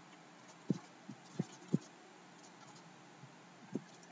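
Five short, soft low thumps over a faint steady hiss: three close together about a second in and one more near the end.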